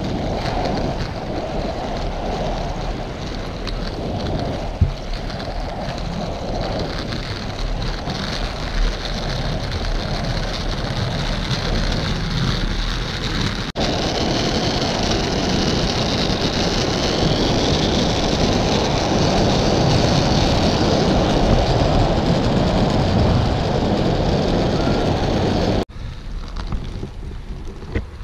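Inline skate wheels rolling steadily over asphalt, with wind rushing over the microphone. About halfway the noise jumps louder and hissier, and it drops away suddenly shortly before the end.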